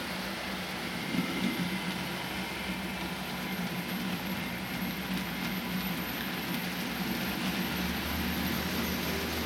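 Model train of tank wagons and a coach running past on the layout's track, a low rolling rumble of wheels on rail over a steady hiss.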